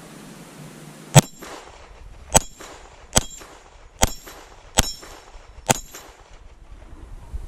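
Volquartsen Black Mamba .22LR semi-automatic pistol fired six times, roughly a second apart. Each sharp crack is followed by a short, high ring from a steel rimfire gong being hit.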